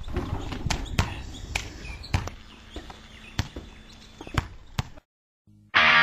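A string of irregular sharp knocks and taps over a low rumble, stopping dead about five seconds in. Loud guitar music starts just before the end.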